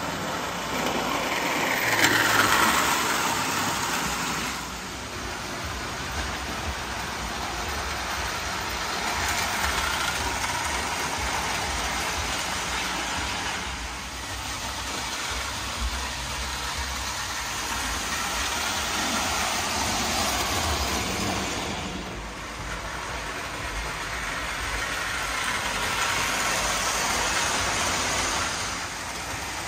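Marx 1829 plastic toy steam locomotive running with its tender and passenger cars: a steady electric-motor whir and wheel rumble on the track. It swells and fades every several seconds as the train comes near and moves away.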